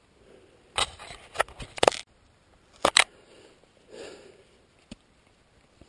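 Sharp crunches and knocks of a person moving over rocky, gravelly ground with the camera jostled: about five in the first three seconds, two of them close together near three seconds, then a lighter one near five seconds.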